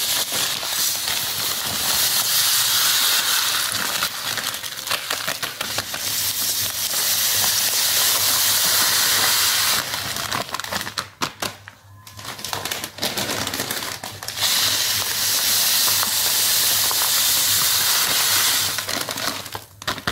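Granulated sugar pouring in a steady stream from a plastic bag into a pot of water and whole spices, a continuous hiss. The stream stops about ten seconds in, with some rustling of the bag, and runs again from about halfway through until shortly before the end.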